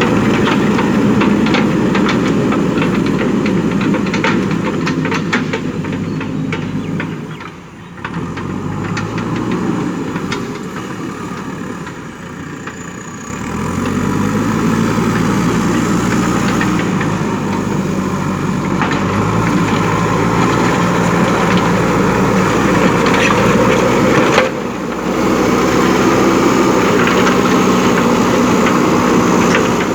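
JCB 3DX backhoe loader's diesel engine running under load, with frequent metallic clatter. The engine dips about a third of the way in, then revs back up with its pitch rising, and drops briefly again near the end.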